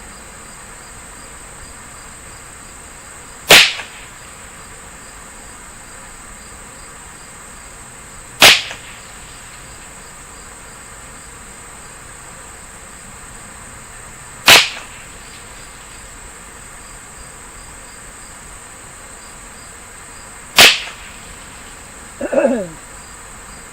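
Four single shots from a Ruger 10/22 semi-automatic .22 LR rifle firing CCI Standard Velocity ammunition, spaced about five to six seconds apart. A steady high insect chirring runs under them.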